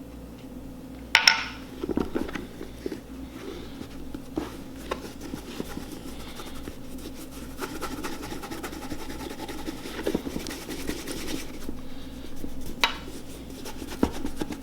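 A cloth rag rubbing boot cream into the oil-slick leather of a work boot, giving a steady soft scratchy rubbing, with a sharp knock about a second in and a few light clicks later.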